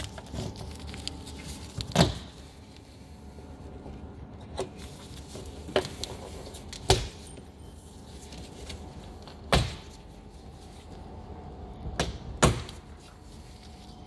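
Plastic wiring clips and electrical plugs on a Jaguar XF's inner door panel clicking and snapping as they are unplugged and pried free: about seven sharp clicks at uneven intervals, two in quick succession near the end.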